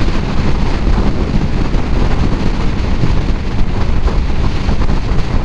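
Steady rush of wind buffeting the camera microphone on a Kawasaki Ninja 650 sport bike at highway speed, mixed with engine and road noise; a dense, low-heavy rumble with no break.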